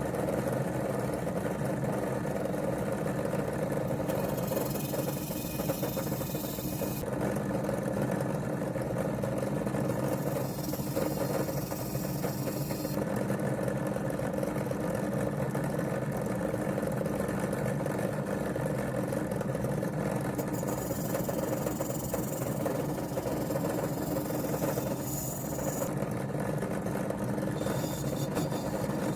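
Electric motor running steadily with a rotary wire brush, scrubbing tarnish off brass blowtorch parts; stretches of higher hiss come and go as the brush bites the metal.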